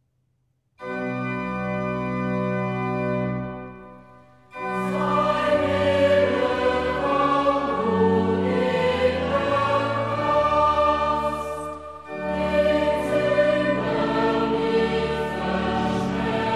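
Background choral music: after a moment of silence a held instrumental chord sounds and fades away, then a choir starts singing with instrumental accompaniment about four and a half seconds in, with a brief break near twelve seconds.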